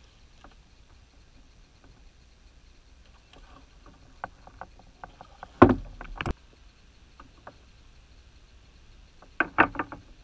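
Scattered clicks and knocks of a fishing rod and baitcasting reel being handled aboard a kayak during a cast. The loudest knocks come about halfway through and again near the end, over quiet water.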